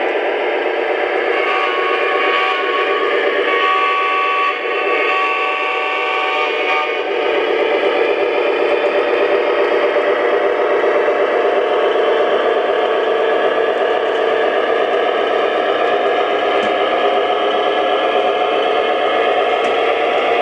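Three-rail O scale model trains running, a steady rolling clatter. A held tone of several notes sounds from about a second and a half in until about seven seconds.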